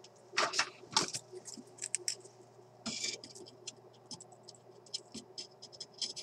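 Light scraping and scattered clicks of a soldering iron and hand tools working at a solder lug on a valve-radio chassis: a few brief scrapes in the first second and again about three seconds in, then quick small ticks.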